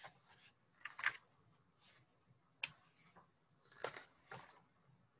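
Pages of a hardcover picture book being turned by hand: a few faint, separate paper flips and rustles with quiet between them.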